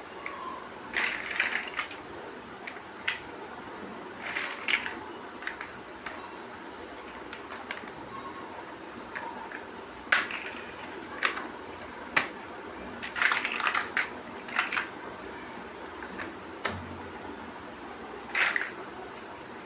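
Plastic Lego bricks clicking and rattling as they are handled and snapped together, in irregular bursts of sharp clicks with short clattering clusters.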